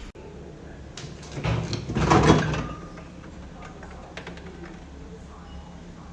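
A door or drawer being handled: a sharp click, another click about a second in, then a louder sliding, rushing sound around two seconds in, with a few faint clicks afterwards.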